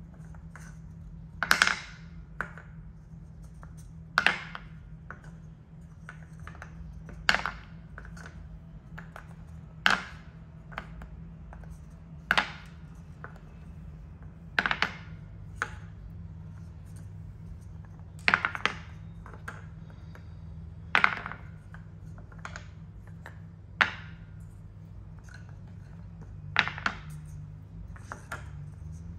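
Solid linden-wood balls set one at a time into a wooden bowl, each landing with a short, sharp wooden knock every two to three seconds; some knocks come in quick pairs. A faint steady low hum sits underneath.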